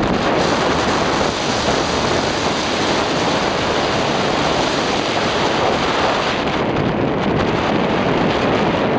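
Steady loud rush of wind buffeting the microphone of a skier moving downhill, mixed with the hiss of skis sliding on groomed snow.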